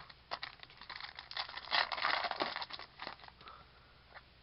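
Trading cards handled by hand: a string of light clicks and slides, with a denser crinkling rustle about two seconds in.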